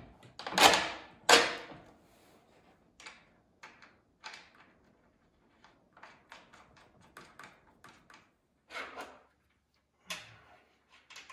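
Snowmobile skis and hand tools being handled as one ski comes off the front spindle and another goes on: two loud knocks about a second in, then a string of lighter metal and plastic clicks and taps, with another clunk near the end.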